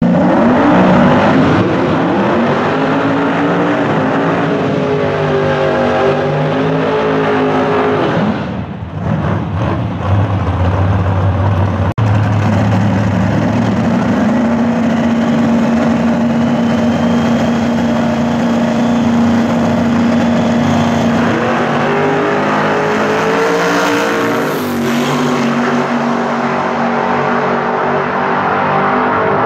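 Drag-racing engines of an outlaw radial Mustang and its opponent at the start line: revving up and down, then held at a steady high drone for several seconds. After about twenty seconds both cars launch hard and the engines pull away down the strip.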